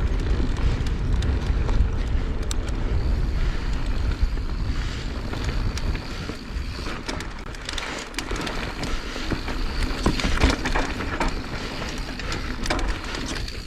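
A mountain bike riding down a dirt trail, heard from the rider's own camera. Wind buffets the microphone, the tyres rumble over the dirt, and the bike rattles with many sharp clicks and knocks.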